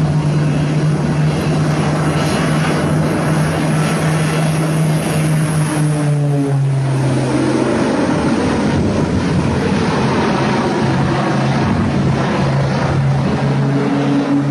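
Propeller aircraft engine running loudly with a steady drone that drops in pitch about halfway through.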